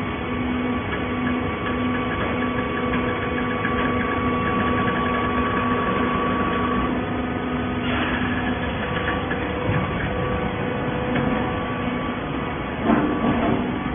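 Horizontal hydraulic baler running, with a steady machine hum and whine. There is a short knock about eight seconds in and another near the end.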